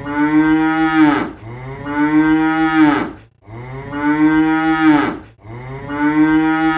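Cattle mooing: about four long moos one after another, each a steady pitched call, with short breaks between them.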